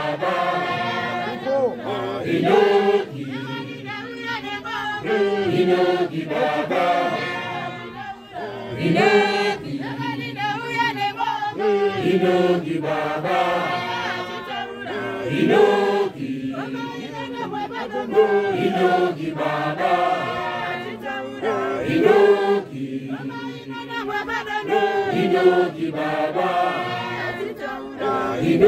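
A Johane Masowe apostolic congregation singing together without instruments: many voices in harmony, in long phrases.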